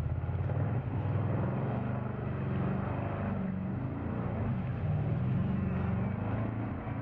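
Engine running steadily as a low hum, its pitch slowly rising and falling.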